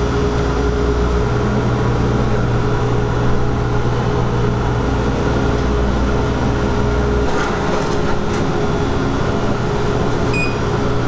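Steady machine hum and whir from the laser cutter setup, its fans and pumps running. The low part of the hum drops about seven seconds in with a couple of light knocks, and short electronic beeps sound near the end as the cutter's control panel is used.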